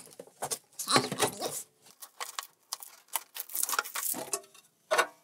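Packaging being handled during an unboxing: clear plastic bags crinkling and rustling and cardboard scraping, in irregular short bursts with a few sharper knocks.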